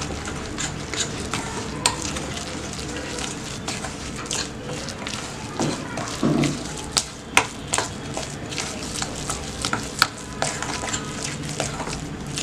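A spoon stirring and scraping a thick spice-paste marinade in a bowl: a steady scratchy rasp with scattered sharp clicks of the spoon against the bowl.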